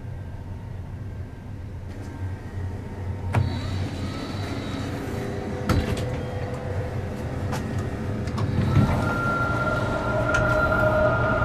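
Steady low hum and rumble inside a sleeper train carriage, with a few sharp clicks. In the last few seconds a steady whine joins in and the sound grows louder.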